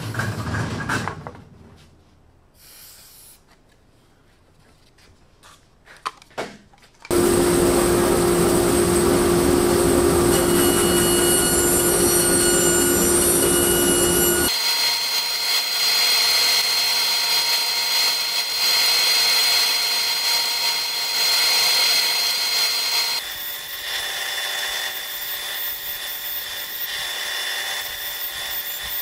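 A spray can hisses briefly, then after a few quiet seconds a large bandsaw starts suddenly about seven seconds in. It runs steadily, ripping a wooden board into thin strips, and its tone changes twice as the cut goes on.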